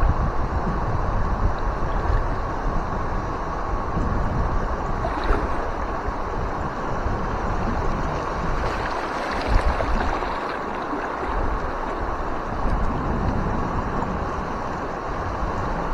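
River water rushing steadily through shallow rapids, with gusts of wind buffeting the microphone.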